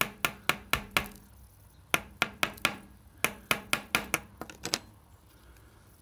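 Sharp taps of the plastic Amphenol connector insert being knocked against a hard tabletop, about four a second in three short runs, knocking its gold-plated pins loose; the tapping stops about five seconds in.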